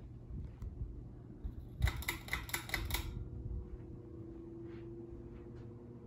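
A 1995 Litex Ellington Deluxe ceiling fan running, with a steady motor hum. About a second and a half in comes a quick run of about eight sharp clicks, with a few low bumps around it.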